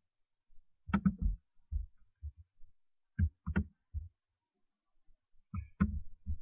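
Computer mouse and keyboard clicks close to a desk microphone: about a dozen short, low knocks and clicks in irregular clusters, with a quiet spell a little past the middle.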